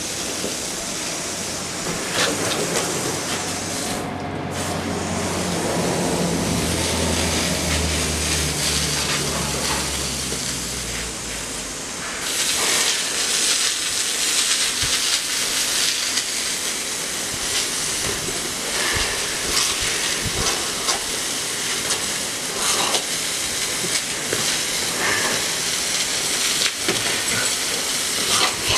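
Water jet from a garden hose nozzle spraying steadily onto the truck and the brick paving. A low engine-like hum sits under it in the first part and fades out about twelve seconds in.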